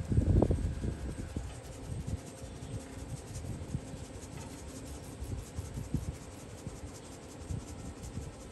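Salt, pepper and garlic seasoning shaken from a plastic shaker bottle, the grains falling as a fine scattered ticking onto raw ribs and an aluminum sheet pan. A few louder low knocks of handling come at the very start.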